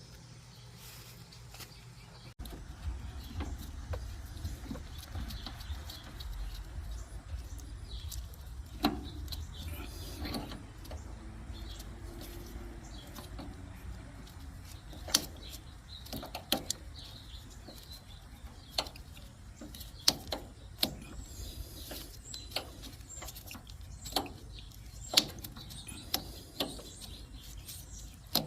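Scattered sharp clicks and knocks of a Schrader valve core removal tool being fitted to an air conditioner's service port and worked to unscrew the valve core. A low rumble comes in about two seconds in.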